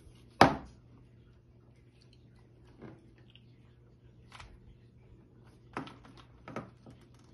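Handling clicks from an iPhone being worked open by hand: one sharp, loud click about half a second in, then a few fainter clicks and taps spread out, over a steady low hum.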